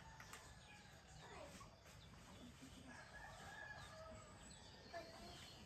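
Faint rooster crowing mixed with small birds chirping.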